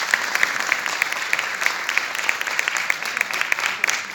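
Audience applauding, a steady, dense run of hand claps.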